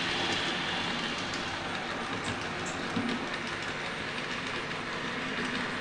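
DCC sound decoder in an N gauge Class 321 electric multiple unit model playing its train running sounds through the model's small speaker: a steady rail-travel sound with faint rhythmic clicks as the unit runs along.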